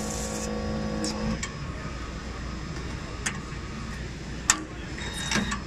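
Youngpool D-600 automatic splicing machine working through a cycle: a short hiss at the start and a steady motor hum that cuts off about a second and a half in, then a few sharp clicks of its clamps and actuators, the loudest about four and a half seconds in.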